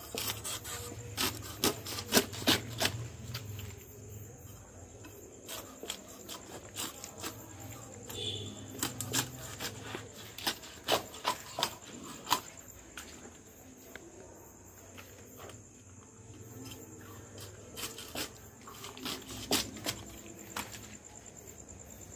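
A blade chopping and scraping through large rohu carp on a tarp, cutting them into steaks: irregular sharp chops and knocks, thickest in the first few seconds and again near the end.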